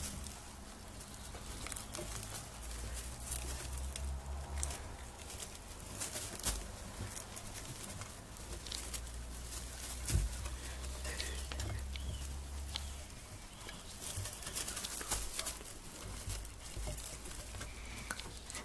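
Young giant lop rabbits jostling and feeding in a wooden hutch: soft rustling with scattered small clicks and scrapes, over an on-and-off low rumble.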